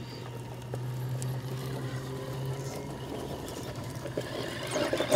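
Radio-controlled rock crawler's electric motor and gear drive whining steadily as it creeps over rocks, with a steady low hum under a thin higher tone.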